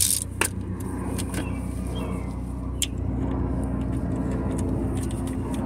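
Steady low mechanical hum, with a few sharp metallic clicks: two near the start and one about three seconds in.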